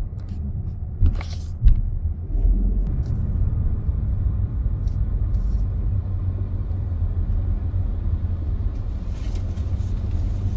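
Low, steady rumble of a car rolling slowly at low speed, heard from inside the cabin, with two short thumps a second or so in.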